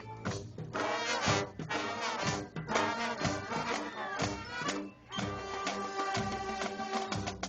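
Brass band music with many stacked held notes and frequent note changes, dipping briefly about five seconds in.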